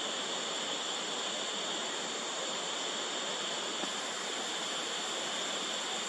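Steady high-pitched drone of forest insects, an unbroken buzz over an even hiss.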